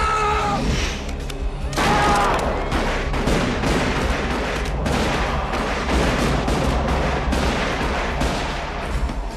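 Men yelling, then a long, unbroken barrage of rapid gunfire from several guns.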